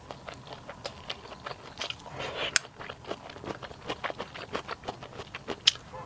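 Close-miked eating: biting and chewing with many short, sharp clicks and taps, two louder clicks standing out.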